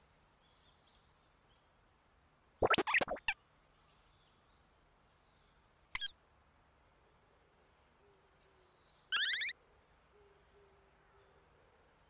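Sparse cartoon sound effects for a sneaking character: a quick cluster of taps about three seconds in, a single sharp click around six seconds, and a short rising warble a little after nine seconds. Faint high birdsong chirps sit underneath.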